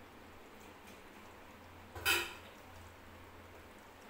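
A single short clink of a steel spoon against an aluminium cooking pot about two seconds in, over a faint steady low hum.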